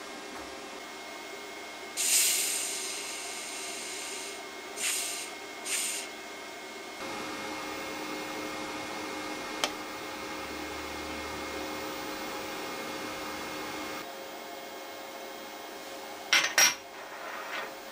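Shielding gas hissing from the cylinder regulator and hose in a loud burst that fades over about two seconds, then two short hisses. Then the VEVOR MIG-200D3 welder, switched on, runs with a steady hum, and near the end steel plates clink together.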